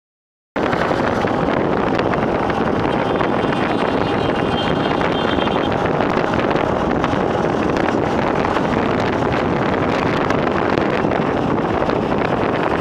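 Steady wind rush on the microphone and road noise from riding at speed alongside traffic, cutting in about half a second in; no distinct engine note stands out.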